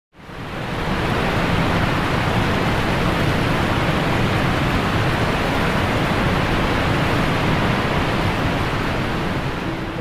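Steady rushing of a large waterfall, an even noise with no distinct tones that fades in over the first second.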